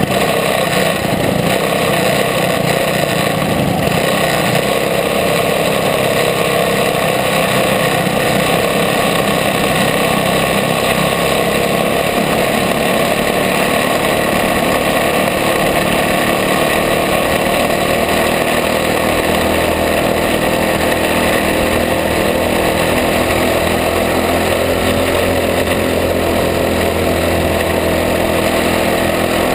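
Jr Sportsman champ kart's engine running steadily under racing load, heard from a camera mounted on the kart itself.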